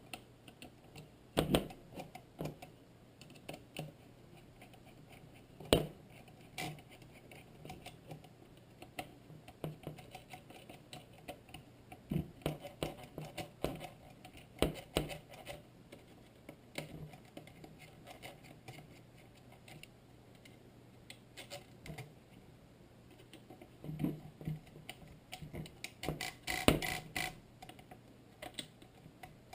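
Scattered small plastic clicks and taps from working on an opened Spektrum DX6 radio transmitter: a small screwdriver on the stick gimbal tension screws and the sticks being moved. A cluster of quick clicks comes near the end, over a faint steady low hum.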